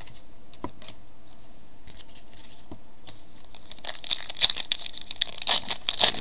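A few light clicks, then from about four seconds in a run of crinkling and tearing: the foil wrapper of a trading-card pack being torn open and crumpled.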